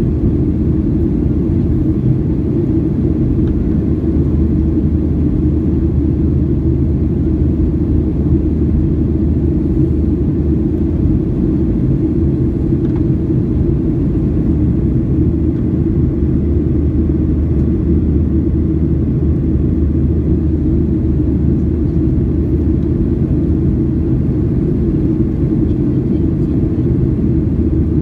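Steady low rumble of a Boeing 737-800's CFM56-7B jet engines and airflow heard inside the passenger cabin during the climb after takeoff.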